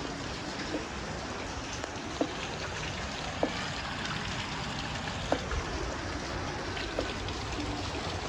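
Steady rain falling, with four sharper drip-like taps standing out over it.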